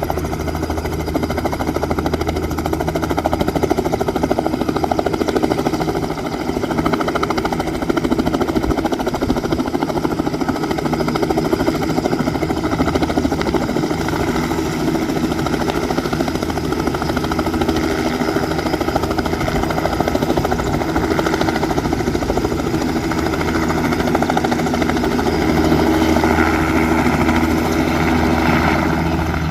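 A Cirrus SR22's piston engine turning its propeller and a Robinson R66 helicopter's turbine and rotor running at the same time, giving a loud, steady mix of engine drone, turbine tone and rotor noise.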